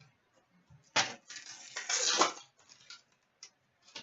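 Trading card pack wrapper being torn open and crinkled. There is a sharp rip about a second in, then about a second and a half of crackling, and a few light clicks near the end.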